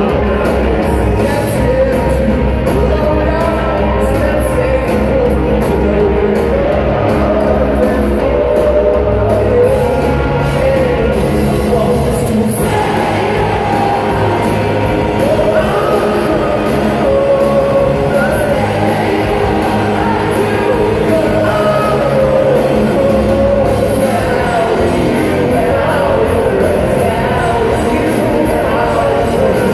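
Live rock band playing amplified through a PA: electric guitars, bass and drums under a singing lead vocal, loud and continuous, heard from the crowd.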